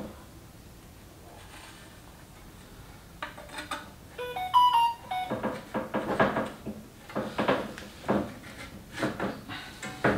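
A short run of electronic beeps stepping between different pitches about four seconds in, then repeated irregular knocks and clatter of parts being handled and fitted.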